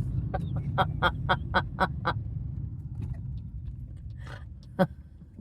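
Birds calling in a rapid series of short, sharp calls, about four a second, that thin out to a few scattered calls, over a steady low rumble.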